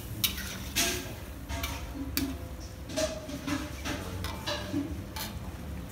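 Metal spatula stirring in a brass wok, knocking and scraping against the pan about ten times at an uneven pace, some strikes leaving a brief metallic ring.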